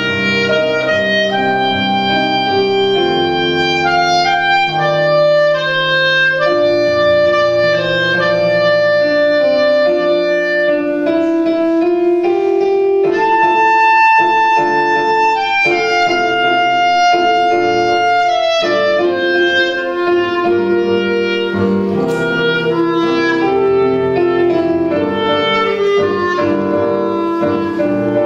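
Clarinet playing a melody over grand piano accompaniment, with a long held high note about halfway through.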